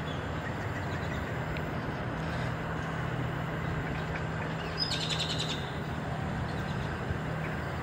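Steady background noise with a low hum. About five seconds in, a bird gives a short, quick chattering call of rapid high clicks lasting under a second.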